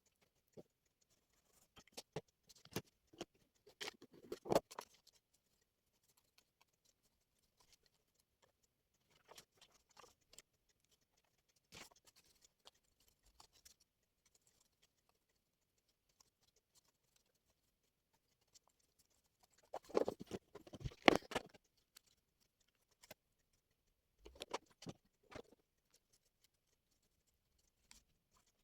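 Scattered small clicks, taps and rustles, with louder clusters about four seconds in, around twenty seconds and again a few seconds later.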